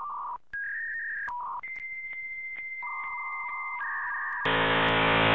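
Electronic logo jingle: single steady synthesized tones, like telephone beeps, stepping between a few pitches, then a loud buzzy synth chord coming in about four and a half seconds in.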